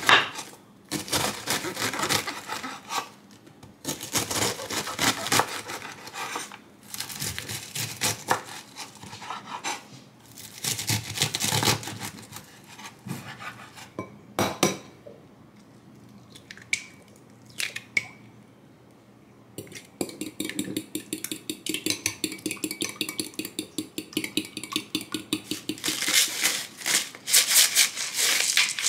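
Knife chopping a cabbage on a wooden cutting board in a run of sharp strokes. Then an egg cracked on a glass bowl, and eggs beaten fast with a metal spoon tapping against the glass. Near the end, a pepper grinder rasping.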